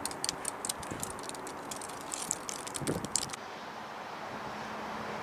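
Jet engine rumble from a Boeing 737 climbing away after takeoff, overlaid for the first few seconds by a rapid run of irregular clicks. A little past halfway the sound changes abruptly to a steadier jet engine noise with a faint low hum that slowly grows louder.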